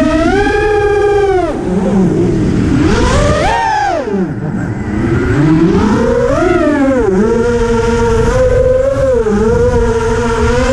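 Quadcopter's brushless motors and propellers whining in flight, the pitch rising and falling with the throttle and dipping sharply about four seconds in, over a low wind rush.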